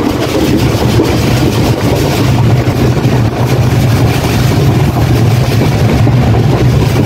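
Express passenger train coach running at speed, heard from inside at an open vestibule door: a loud, steady rumble of wheels on the track with rushing air.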